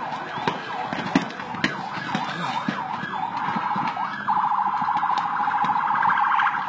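Emergency vehicle siren in fast up-and-down yelping sweeps, switching about four seconds in to a rapid buzzing pulse, with scattered sharp pops of fireworks exploding in the burning market.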